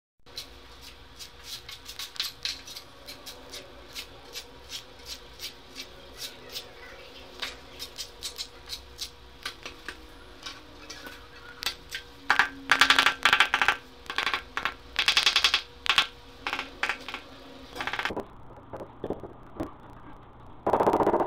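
A long run of sharp clicks and clinks of small hard objects being handled, with louder, denser rattling about twelve seconds in and again around fifteen seconds. It stops suddenly, and there is a loud rattle near the end.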